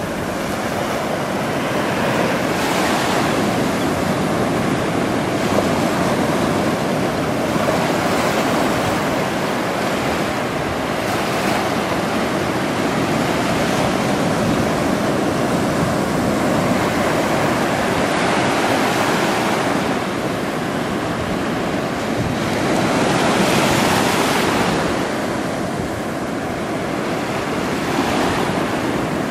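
Ocean surf breaking and washing up on a sandy beach, a steady rush that swells and eases as each wave comes in, with one louder surge about two-thirds of the way through.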